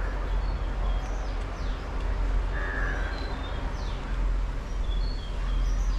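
Birds calling in the background: scattered short high chirps and one longer call about two and a half seconds in, over a steady low rumble.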